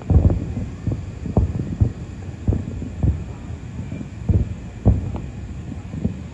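Aerial firework shells bursting at a distance: a string of irregular, dull low booms, about two a second, over a continuous low rumble.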